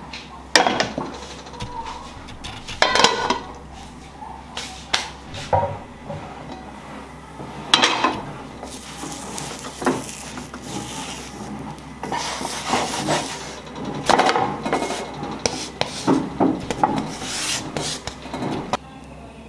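Wooden spatula scraping and knocking against a frying pan as a pizza base cooks, in irregular strokes with short pauses between them.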